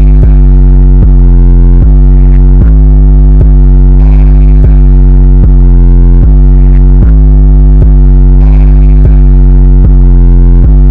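Loud, heavily bass-heavy electronic music: a distorted synthesizer plays a repeating bass line whose notes change a little faster than once a second.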